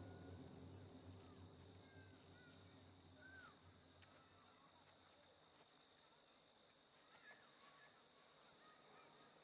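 Faint outdoor ambience: a steady high insect trill with scattered short bird chirps and whistles. A low sustained sound fades away over the first few seconds.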